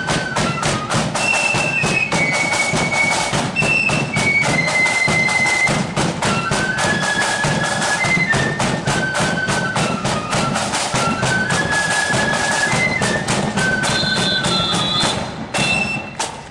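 Marching flute band playing a tune: high flutes carry the melody over a steady beat of snare and bass drums. The music stops about a second before the end.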